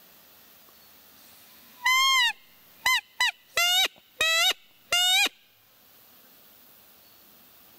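A hand-blown roe deer call sounding six loud, nasal squeaks that imitate a doe during the rut to lure a buck: one longer call, two short ones, then three more.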